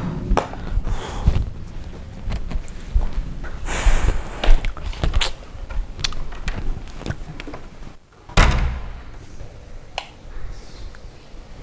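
Knocks, thuds and rustling as a wooden interior door is opened and shut, with handling and footstep noises; the loudest thud comes about eight seconds in.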